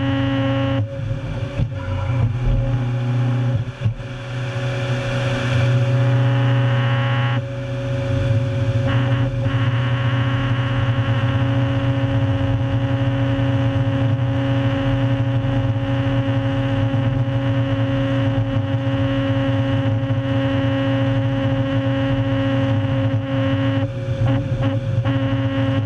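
Stumpmonster tracked stump destroyer (400-plus hp) running as its rotating head planes a Sitka spruce stump into chips. It makes a steady engine and hydraulic drone, whose tone shifts about a second in, again around seven seconds, and near the end.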